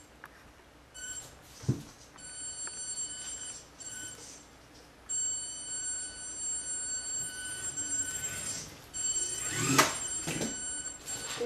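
Small electric motor of a toy remote-control car whining at a steady high pitch in runs that start and stop several times. There is a short low thump about two seconds in and a louder, rougher burst near the end.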